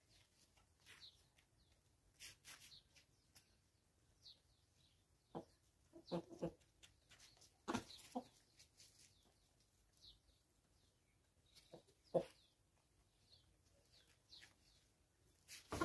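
Free-range chickens clucking softly in short bursts, a cluster of clucks around the middle and another single one later, over faint short high chirps that recur every second or so.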